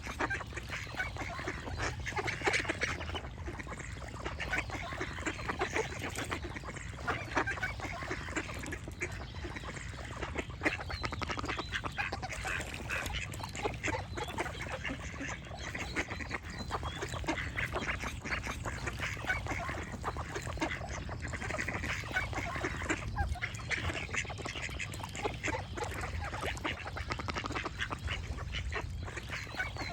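A flock of ducks quacking in many overlapping calls, without pause, over a low steady rumble.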